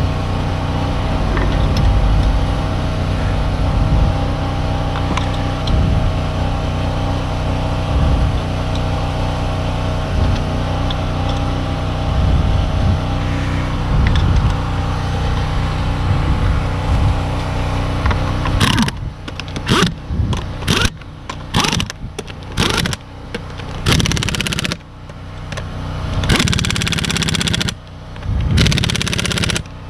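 A steady machine hum with an unchanging low pitch. From about 19 s in, an impact wrench runs lug nuts onto the wheel in a series of short rattling bursts with brief pauses between them.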